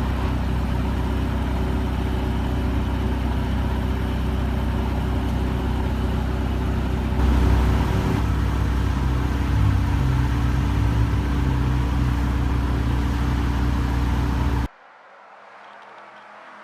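Porsche 918 Spyder's V8 running hard at a steady high speed over a heavy, deep rumble. About seven seconds in the engine note steps down to a lower pitch and holds, then the sound cuts off suddenly near the end.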